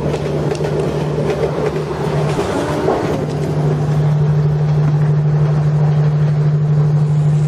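Battery-powered plastic toy train's electric motor running with a steady hum and a fast rattle. It gets louder about three and a half seconds in.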